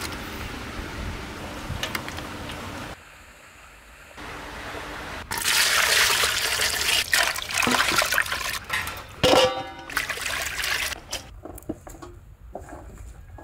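Water pouring and splashing, heard in several abruptly cut stretches, loudest over about five seconds in the middle, with softer scattered clicks near the end.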